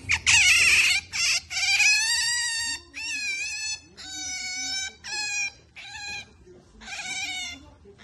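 Pet otter squealing in a run of high-pitched whining calls while being stroked, each call about half a second to a second long: its pampering noise when petted.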